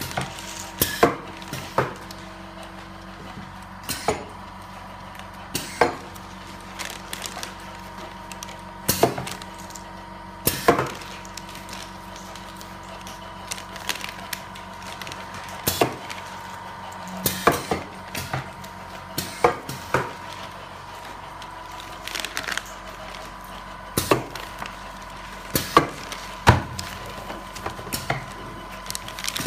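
Semi-automatic coffee valve applicator machine running with a steady hum, with sharp knocks and clacks every second or two, often in quick pairs, as degassing valves are pressed onto coffee bags.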